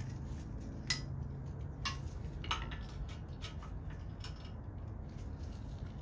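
Irregular sharp metallic clinks and taps of a steel combination wrench against a car's front brake caliper as it is levered to work the caliper loose, the loudest about a second in.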